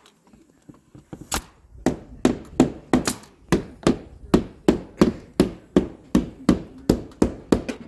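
Claw hammer striking wooden roof framing in a steady run of blows, about two to three a second, starting about a second and a half in.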